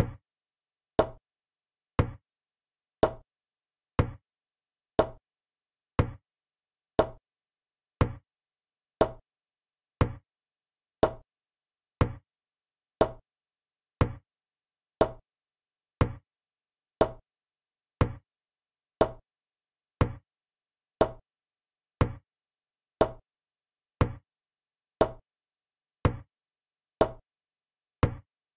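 Chess program's move sound: a short, sharp click about once a second, one for each move as the game is played back.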